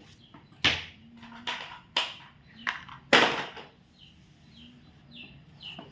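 Toys being handled: a handful of sharp clacks and knocks, the loudest about three seconds in. Faint, short chirps of a small bird come in the second half.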